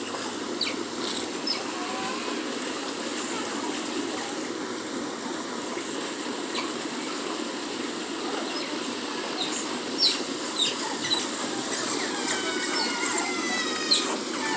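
Asian small-clawed otters giving short, high chirps over a steady rushing background noise, with a quick run of falling chirps near the end.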